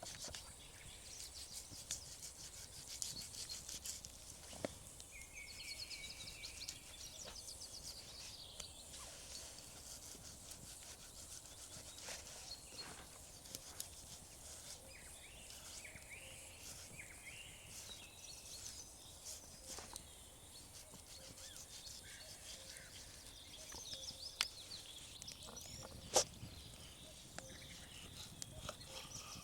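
Faint forest ambience: small birds chirping on and off, with scattered light clicks and two sharper knocks near the end.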